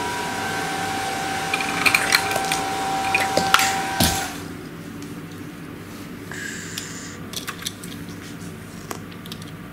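A steady machine whine made of several fixed tones cuts off abruptly about four seconds in. Scattered light clicks and clacks of plastic Lego pieces being handled are heard through it and afterwards.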